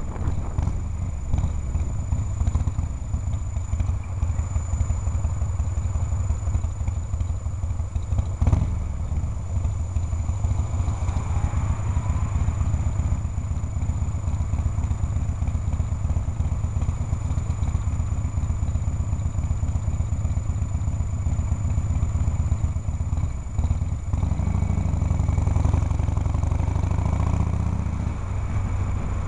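Harley-Davidson Shovelhead V-twin engine running steadily as the motorcycle is ridden through traffic, heard from a helmet camera. There is a single knock about eight seconds in, and the engine picks up in pitch near the end as it accelerates.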